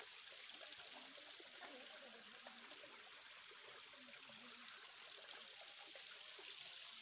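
Faint, steady trickling of a small stream running over stones.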